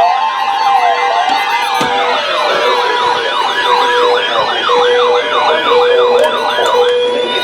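Several electronic sirens layered together, each sweeping rapidly up and down in a yelp pattern over a steady tone. The sweeps quicken about two seconds in, and near the end a single long rise and fall begins.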